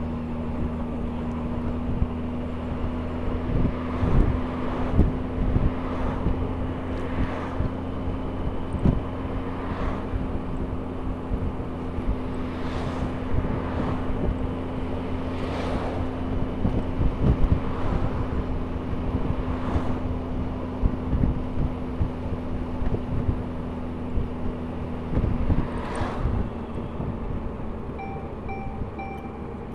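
Honda Gold Wing touring motorcycle's engine running steadily on the move, with wind rushing and gusting over the microphone. About 25 seconds in, the steady engine note drops away as the bike slows, and three short beeps sound near the end.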